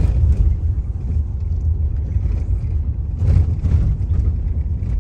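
Road noise of a moving car: a steady low rumble of tyres and engine, swelling briefly a little over three seconds in.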